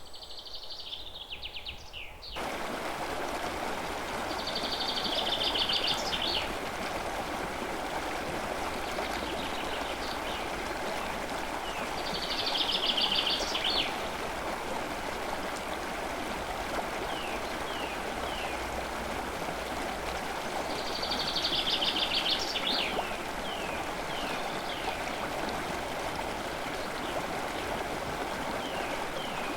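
A songbird singing the same phrase three times, each a fast trill followed by a string of short falling notes, over a steady rushing hiss of forest ambience that cuts in suddenly about two seconds in.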